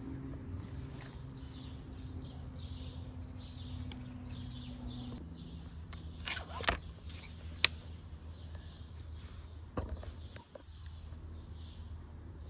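A few sharp clicks from handling an air rifle while getting ready to fire: a short cluster about halfway through, a single sharp snap about a second later and a softer click near the end. Under them is a steady low hum, with faint bird chirps.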